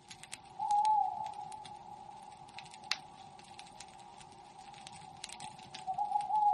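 Background soundtrack of a steady, slightly wavering droning tone under irregular sharp clicks and crackles. The drone swells louder about a second in and again near the end, and one click near the middle stands out.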